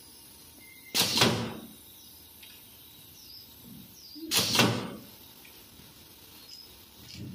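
Induction-triggered pneumatic wire stripper firing twice on a wire, about three and a half seconds apart, each stroke a sudden clack with a short rush of air.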